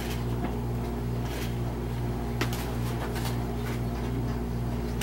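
Steady low background hum with a few faint short clicks.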